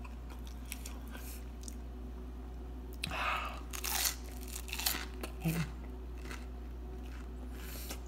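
Close-up crunching and chewing of toasted cheesy garlic bread, a cluster of crisp crunches about three to six seconds in, with a few faint mouth clicks around them.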